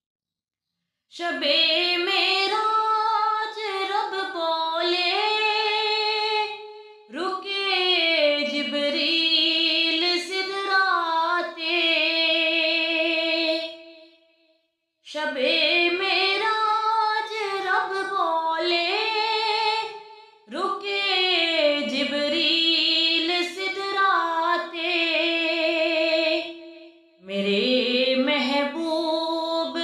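A woman singing a naat solo, with no instruments, in long melodic phrases with short breaks between lines and one brief pause about halfway.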